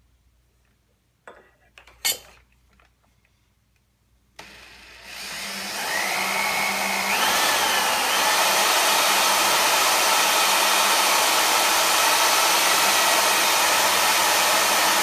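Corded power drill with a right-angle attachment, turning a Forstner bit to bore a hole into wood. A few light knocks come first as the bit is set. The drill starts about four seconds in, speeds up over a few seconds and then runs steadily.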